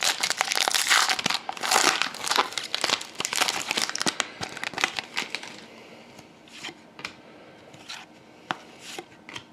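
A trading card pack wrapper being torn open and crinkled for about five seconds, then a few light clicks and rustles as the cards are slid out and handled.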